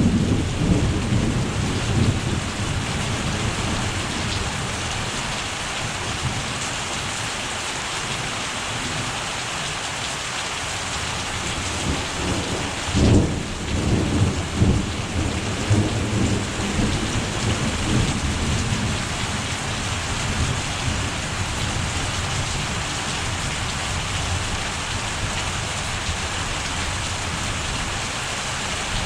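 Thunderstorm: heavy rain falls steadily throughout with a continuous hiss. Thunder rumbles at the start, then a louder crack about 13 seconds in is followed by rolling rumbles for several seconds.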